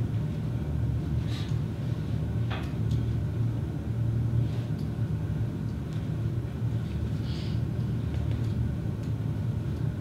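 Steady low room hum, with a few faint small clicks and rustles.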